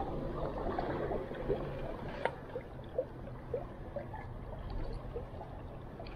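River water gurgling and lapping against the hull of a small boat, with irregular small plinks and one sharp click about two seconds in.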